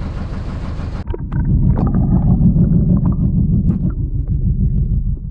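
Fishing boat's engine running, with wind buffeting the microphone and scattered knocks. About a second in the sound changes abruptly to a louder, deeper rumble.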